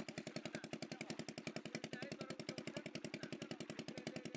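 A small single-cylinder engine running steadily, a fast even thudding at about ten beats a second over a low hum, with faint voices in the background.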